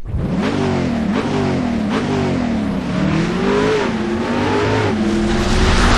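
Car engine revving, its pitch rising and falling several times, getting louder near the end.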